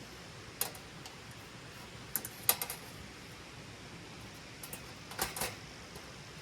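Light clicks and taps in small clusters, with a couple of pauses between them, over a steady faint hiss.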